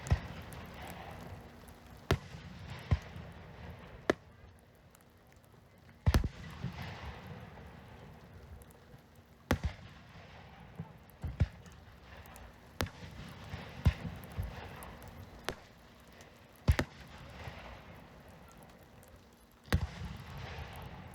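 Fireworks display: shells bursting with sharp bangs at irregular intervals, one every one to three seconds, with softer noise filling the gaps between them.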